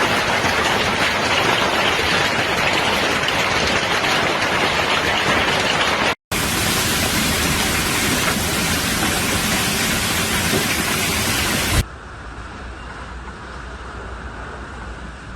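Hail and heavy rain pelting down, a loud dense steady hiss. It breaks off for a moment about six seconds in, then drops suddenly to a quieter, duller rush near the twelve-second mark.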